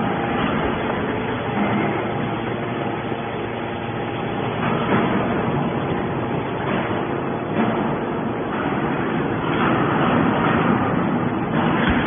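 Hydraulic scrap metal baler running, its hydraulic power unit giving a steady drone as the ram pushes a compressed bale of metal turnings out of the discharge opening.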